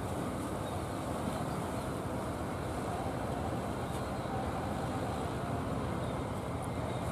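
Steady drone of a wooden fishing boat's inboard engine as it motors in, mixed with the rush of its bow wave through the water.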